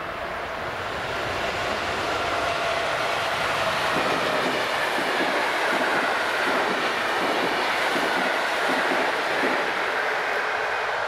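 A train running past over the level crossing: a steady, loud rumble and rush of wheels on the rails that builds over the first couple of seconds and then holds.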